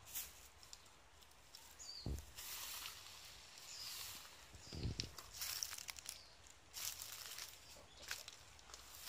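Plastic bags rustling and crinkling in irregular bursts while bait is handled and smeared onto a tree trunk, with a couple of dull handling bumps. Near the end come footsteps scuffing through dry leaf litter.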